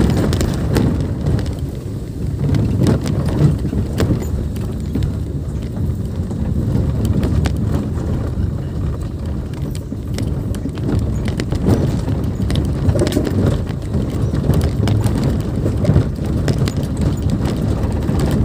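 A car driving over a rough, stony dirt track, heard from inside the cabin: a steady low rumble with frequent clicks and knocks from gravel and stones under the tyres.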